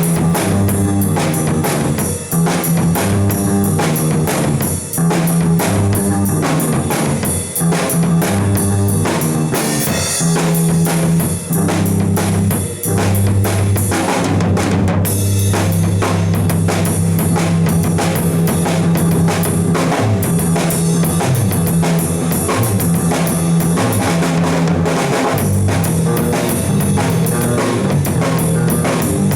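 Live band jam: a drum kit keeps a steady beat of kick and snare hits under an instrument holding low notes that shift in pitch.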